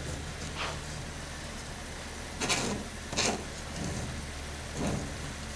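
Wooden spoon stirring and scraping couscous grains in a metal colander: four short rustling scrapes, the loudest two around the middle, over a steady low hum.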